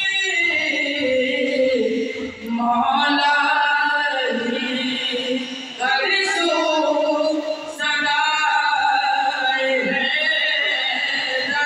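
A young man singing a devotional song into a microphone over a PA, drawing out long notes that slide between pitches, with brief breaks for breath between phrases.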